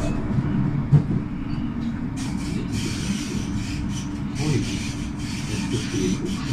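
S-Bahn train of a class 143 electric locomotive and X-Wagen coaches running along the track: a steady low rumble with a rubbing hiss of wheels on rail. A single knock comes about a second in.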